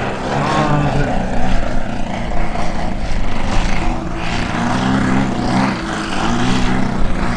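Large-scale RC aerobatic propeller plane flying past, its engine and propeller droning steadily with the pitch shifting up and down as it manoeuvres.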